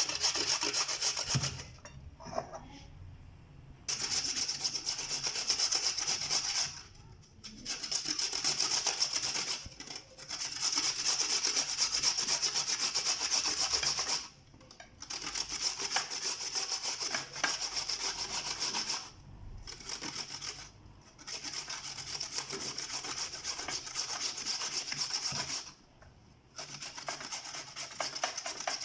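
Raw peeled potatoes being grated by hand on a metal grater: a rapid rasping scrape of quick strokes, in spells of several seconds with short pauses between them.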